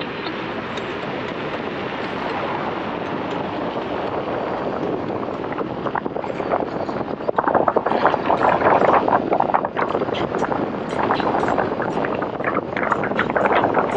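Wind rushing over a motorcycle helmet while riding at speed, a steady rush that grows louder and rougher about seven seconds in.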